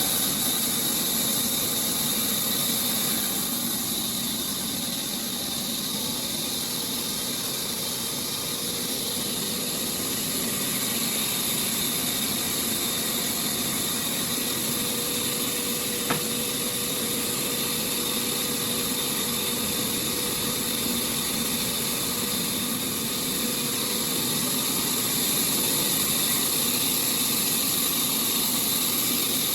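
Sawmill machinery running steadily with a constant high hiss, and a single sharp click about sixteen seconds in.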